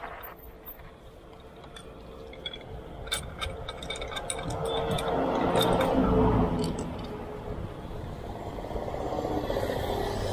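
Water from a garden hose running into a bottle, swelling over a couple of seconds and then stopping. A few light clinks of the bottle being handled come just before it.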